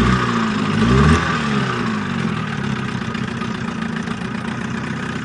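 1980 Johnson 7.5 hp two-stroke outboard motor running. It is revved up and back down twice in quick succession near the start, then settles into a steady idle.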